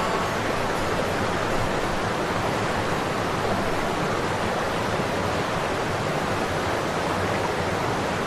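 Steady rushing of a fast mountain river in a gorge: an even, unbroken hiss.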